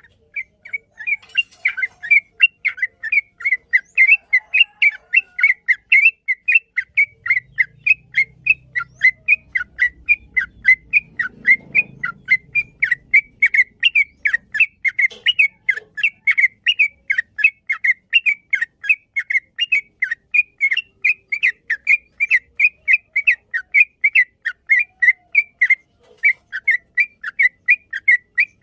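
Yellow-vented bulbul (trucuk) singing a long unbroken run of short, sharp chirping notes, about three or four a second.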